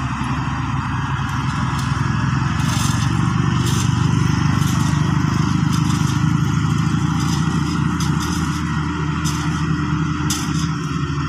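Diesel engine of a motor grader running steadily under load while it spreads crushed-stone aggregate. Short scrapes and clatters of gravel come now and then over the engine.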